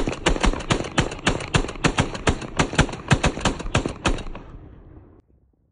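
Aero Precision M16A4-clone rifle in 5.56 firing a rapid string of about twenty shots, roughly five a second, from its Franklin Armory binary trigger, which fires on both the pull and the release of the trigger. The shots stop about four seconds in and the echo fades out a second later.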